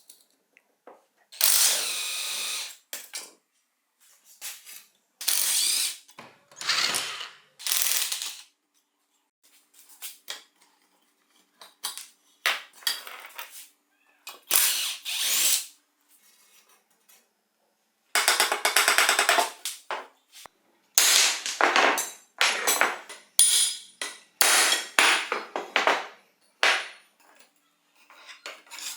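Mechanical tool work on bicycle parts: a series of short bursts of ratcheting and power-tool whirring, separated by brief pauses.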